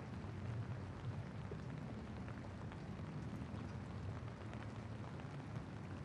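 Steady rain falling on wet pavement, with a low rumble underneath and scattered faint ticks of drops.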